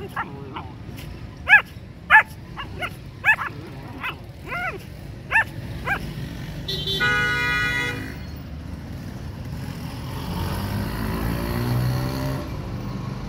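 Three-month-old German Shepherd puppies giving short, high-pitched play barks and yips while wrestling, about nine of them in the first six seconds. Partway through comes a steady pitched tone lasting about a second, and near the end a low vehicle rumble swells and fades.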